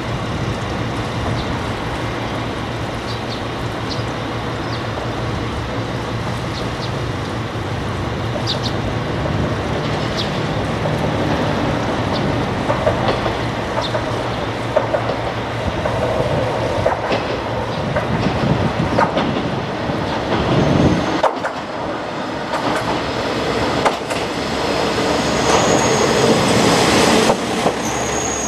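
Heisei Chikuho Railway 400-series diesel railcar approaching and passing close by, its engine and wheels on the rails growing louder. Near the end a steady high-pitched wheel squeal sets in.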